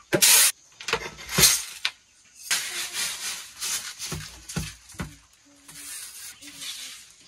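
Dry grain rustling and pouring as it is shaken on and tipped off a flat bamboo winnowing tray into a plastic bucket, in several short bursts. A few soft knocks of the tray come near the middle.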